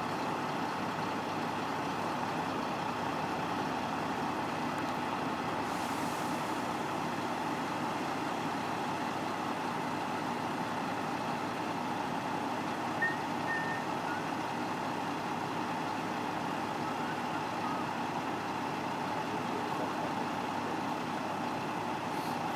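Heavy recovery truck's diesel engine running steadily at a constant speed.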